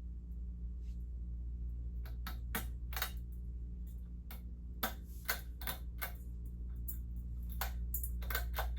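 Irregular sharp clicks and rattles from a Hampton Bay Tripoli ceiling fan's pull chain and switch being worked, over a steady low hum.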